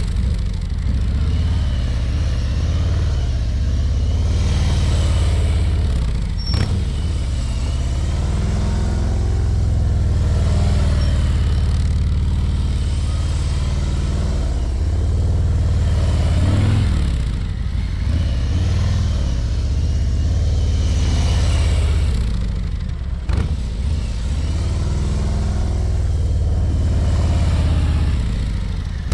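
Harley-Davidson Ultra Limited's V-twin engine running at low speed as the heavy touring bike rides slowly back and forth, its sound rising and falling in pitch and loudness as it passes close by and moves off again several times.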